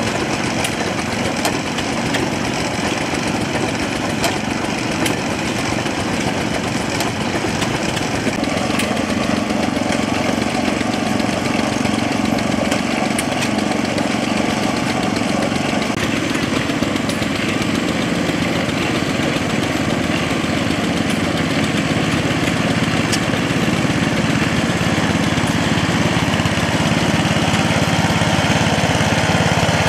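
Small gasoline engine running steadily as it drives a McCormick-Deering stationary hay baler, with a few sharp clunks from the baler. The running sound takes on a stronger low hum about nine seconds in.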